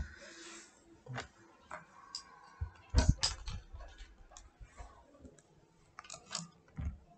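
Scattered faint clicks and light taps, about a dozen at uneven spacing, with the loudest pair about three seconds in: computer mouse clicks and handling at the desk, picked up by the microphone.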